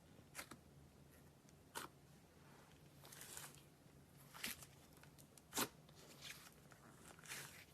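Faint, irregular sticky clicks and short crackles of slime being handled: about half a dozen sharp pops with a couple of brief rustling swishes.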